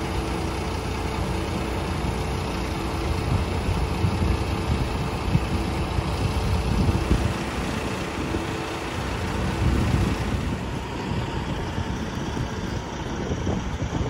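A New Holland combine harvester running steadily at work, giving a continuous low mechanical rumble.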